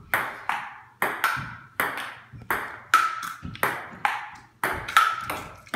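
Table tennis rally: the ball clicking back and forth off the paddles and the table, about two hits a second, several with a brief ringing ping.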